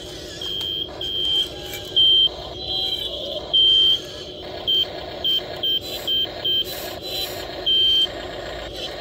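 Toy RC tracked excavator moving under power: a steady electric motor and gear whine under about ten loud electronic beeps, all at one high pitch, some long and some short, coming at irregular intervals.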